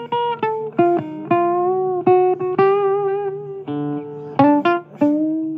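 Blues record with a guitar playing a line of single plucked notes, some of them bending in pitch, over a steady low accompaniment.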